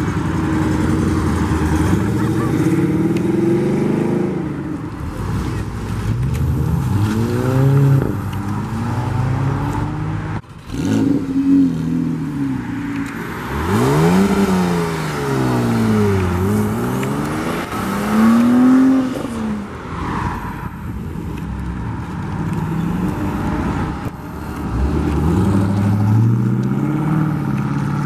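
Car engines pulling away one after another: a Jeep CJ, then a Porsche 911 Carrera whose engine pitch sweeps up and down several times as it accelerates through the gears, then a C4 Corvette's V8 rising in pitch near the end.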